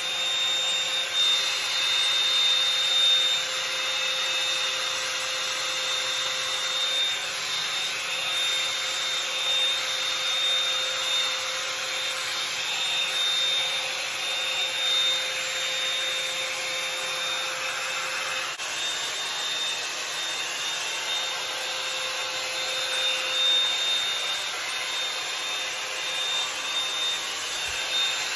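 Bed Head Blow Out Freak hot-air volume brush running steadily as it is drawn through hair: a continuous rush of air from its fan with a thin high whine over it, really loud right next to the ear.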